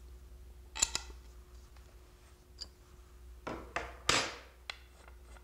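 Small clicks and knocks of hands working a billiard cue's butt end and its bumper with a metal hex key, then a short scrape about four seconds in as a hand reaches to the tools on the wooden desk.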